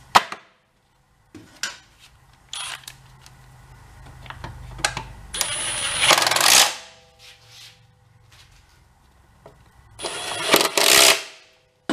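A few light metal clicks, then two short bursts of a power tool working on a lawn mower blade, each about a second and a half long, the first about five seconds in and the second about ten seconds in.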